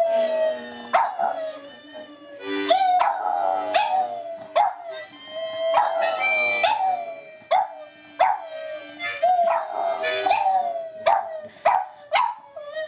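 Dogs howling and yipping: a howling-dog video playing on the TV, with a Boston terrier howling along. Long wavering howls are broken by short, sharp yips that drop in pitch, and the yips come faster near the end.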